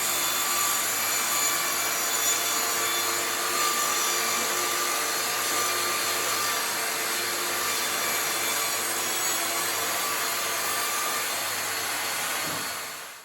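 Electric power tool motor running steadily with a loud rushing hiss, held at an even speed, then cutting off abruptly.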